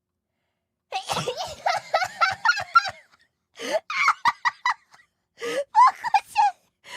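A young woman laughing in quick bursts with gasps, in three spells separated by short pauses, starting about a second in.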